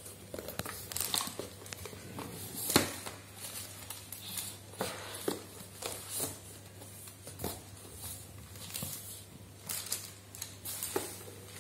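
Cardboard packaging being handled: irregular light knocks, scrapes and crinkles as a boxed tablet is lifted out of a cardboard gift box. The sharpest knock comes nearly three seconds in.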